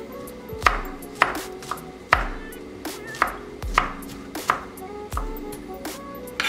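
Chef's knife chopping garlic on a wooden cutting board: sharp knocks of the blade on the board, unevenly spaced at about two a second.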